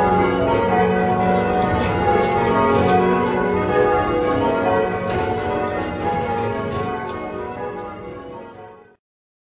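Change ringing on a ring of eight church bells cast by Taylors in 1925, a 14 cwt ring with its tenor in F sharp, the strokes following each other quickly. The strokes stop about two-thirds of the way through and the bells die away, then the sound cuts off to silence just before the end.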